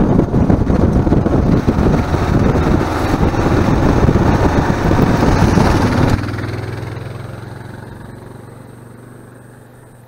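Kawasaki KLR650's single-cylinder engine running while riding, mixed with heavy wind rush on a helmet-mounted microphone. About six seconds in this cuts to a motorcycle engine heard from the roadside, its steady tone fading away evenly as the bike rides off.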